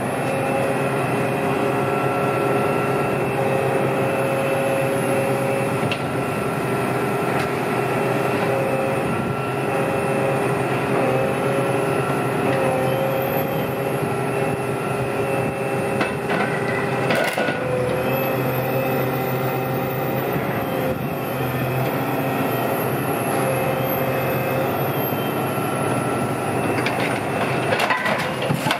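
Heavy scrapyard demolition machine running steadily, its high hydraulic whine rising and falling as it works on a bus body. A sharp crack about seventeen seconds in and several more near the end as material gives way.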